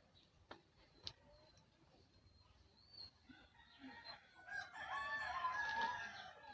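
A rooster crowing once, a long pitched call of about two seconds that rises, holds and falls, starting past the middle. A few sharp faint clicks come before it.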